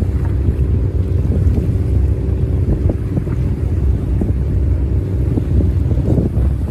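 Diesel engine of a squid-jigging fishing boat running steadily at speed as it passes, a low even drone, with heavy wind buffeting the microphone and waves splashing.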